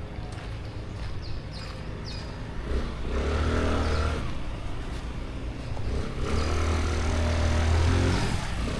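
Small motor scooter engines running, with two louder swells, about three seconds in and again about six seconds in, as the scooters come close or are revved.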